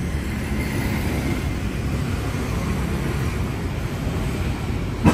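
Steady city street noise: a low traffic rumble, with wind on the microphone.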